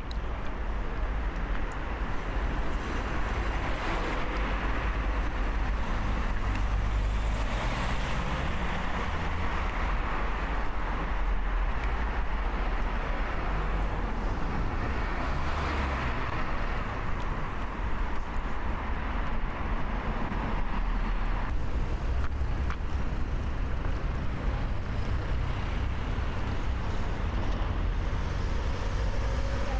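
City street traffic: a steady low rumble with several vehicles passing, each swelling and fading.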